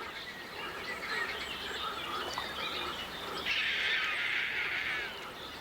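Many birds calling and chirping at once, a natural chorus of short chirps. It thickens into a dense chatter for about two seconds past the middle.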